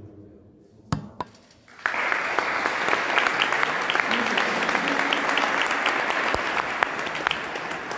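Audience applauding, starting suddenly about two seconds in and continuing steadily, preceded by two sharp knocks about a second in.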